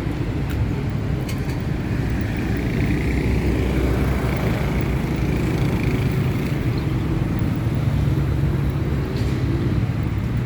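A motor vehicle engine running steadily, a low, even hum with no change in speed.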